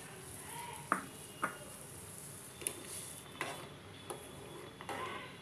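Steel spoon stirring penne in a saucepan of water, clinking against the metal pot about six times at uneven intervals.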